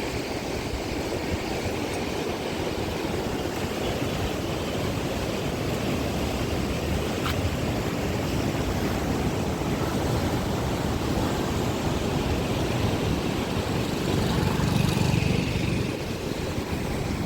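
Steady rushing of a river in flood, with wind buffeting the microphone; it swells briefly near the end.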